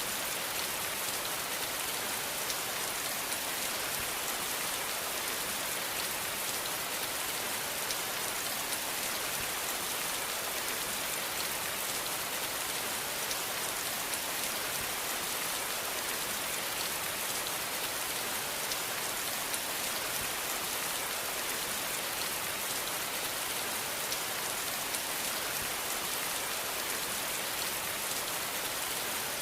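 Steady rain falling on a surface, a dense even hiss with many small drop ticks and no thunder.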